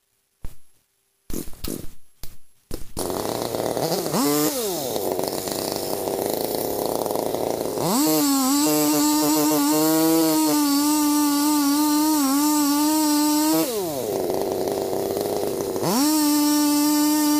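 Chainsaw's two-stroke engine idling, with a quick rev up and down, then run up to full throttle about eight seconds in and held with small dips in pitch as it cuts into a tree trunk. It drops back to idle for a couple of seconds and then revs up to full throttle again near the end. The first couple of seconds hold only a few short knocks.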